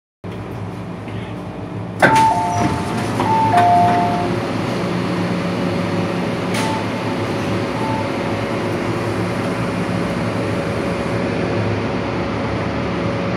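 MTR M-Train's sliding passenger doors opening abruptly with a loud bang about two seconds in, followed by an electronic two-tone door chime. The train's steady ventilation hum runs underneath, with a further click and short beep a few seconds later.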